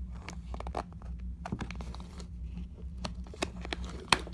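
Scattered small clicks and crinkling from a locking adjustable wrench being handled on a tabletop, with one sharp click near the end.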